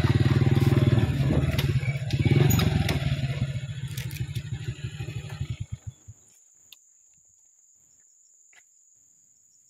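A small engine running with a rapid low putter, fading and then cutting out with slowing pulses about six seconds in. After it stops, a steady high-pitched insect drone and a few faint clicks remain.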